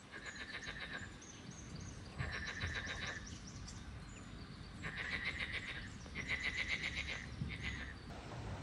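Frogs calling from a pond: five bursts of rapid, evenly pulsed croaking, each about a second long, over a faint low rumble.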